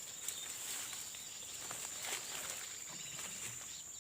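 Insects buzzing in one steady high-pitched drone, with a few scattered rustles and clicks.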